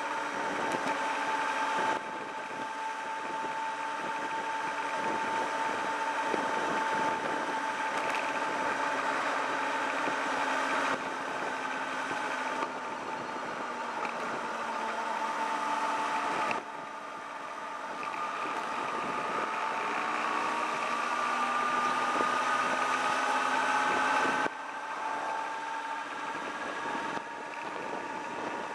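Sport motorcycle engine running at low town speed under the rider, with wind noise. The engine note sinks slowly as the bike slows, then climbs again as it speeds up, and the sound jumps or drops in level suddenly several times.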